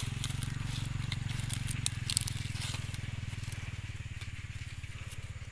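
Maize leaves crackling and rustling as fingers pull at the plant's whorl, in a run of sharp crackles that thins out after about three seconds. Under it runs a steady low hum with a fast, even pulse.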